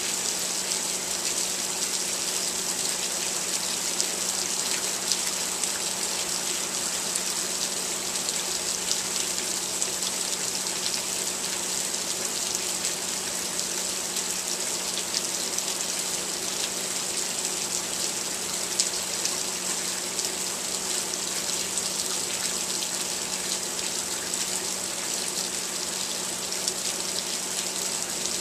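Rain falling steadily, with many small sharp drop ticks through it and a faint steady low hum underneath.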